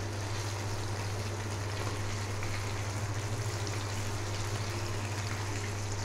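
Marinated goat brain pieces frying in hot oil on a tawa over a low flame: a steady sizzle and bubbling while a spatula gently turns them. A steady low hum runs underneath.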